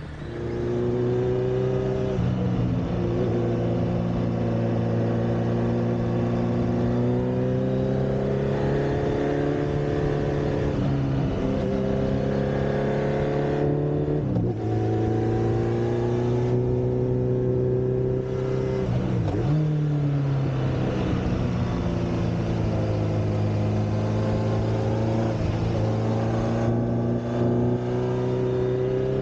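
Honda CB1300 Super Four's inline-four engine running through a BEAMS muffler fitted with a custom inner silencer, under way. The pitch climbs slowly through each gear and drops sharply at each of several gear changes.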